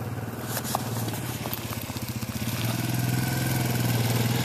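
Suzuki Ozark four-wheeler's single-cylinder engine running steadily at low speed as the ATV rides close by, getting louder from about halfway through.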